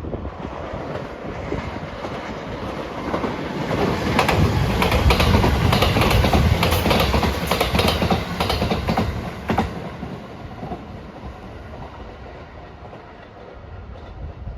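A train passing close by, its wheels clacking over the rail joints: the sound builds to a peak in the middle, with a quick run of clacks, then fades as the train moves away.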